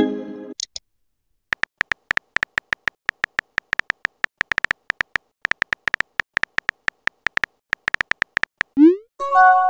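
Synthetic key-click sound effects from a texting app: an irregular stream of short, slightly tonal ticks as a message is typed out letter by letter. There is a short chime at the start, and near the end a quick rising blip followed by a chime of several steady notes as the message is sent.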